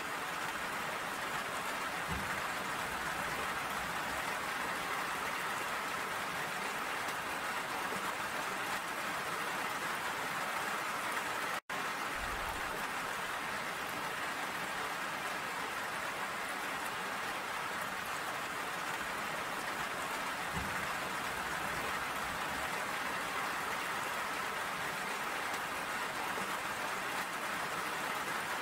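Steady rain falling, an even hiss with no let-up, broken once by a split-second gap of silence a little before halfway.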